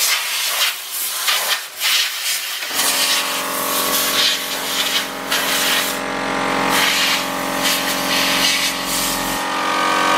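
Steel wire brush scrubbing rust from a rear brake hub in repeated scraping strokes. About three seconds in, a motor starts with a steady hum that runs on under the brushing.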